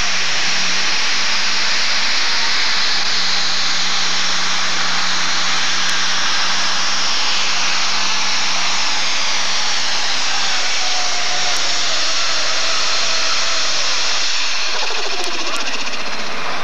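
Super stock pulling tractor's diesel engine running at full throttle under load on a pull, loud and steady. Its note drops a little near the end.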